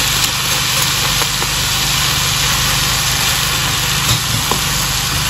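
Frozen chopped spinach sizzling in hot oil in a wok, with a few light knocks of a wooden spatula stirring it, over a steady low hum.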